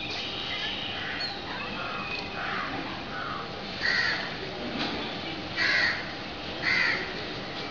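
Three short, harsh animal calls, the first about halfway through and the next two about a second apart.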